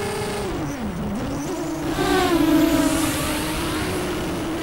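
Racing quadcopter's motors and propellers whining under throttle on a 4S battery. The pitch drops about a second in as the throttle eases off, climbs back and is loudest just after two seconds, then holds steady.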